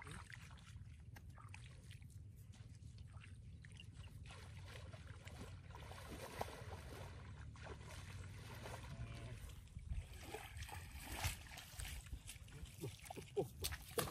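Feet sloshing and splashing through shallow water in a flooded field, in short irregular splashes that grow louder and more frequent in the last few seconds, over a steady low rumble.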